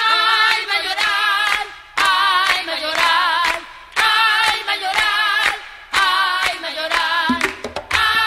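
Recorded Afro-Peruvian song: a woman's voice sings phrases with a wide vibrato, about one every two seconds, with handclaps. Percussion joins about seven seconds in.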